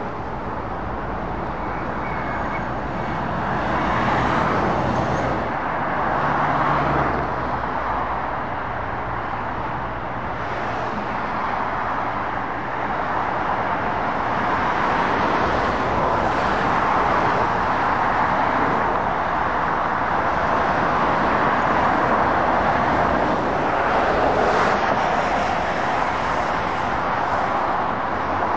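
Dual-carriageway traffic: a steady stream of lorries, vans and cars passing, mostly tyre noise on the road with engine hum, swelling and fading as each vehicle goes by.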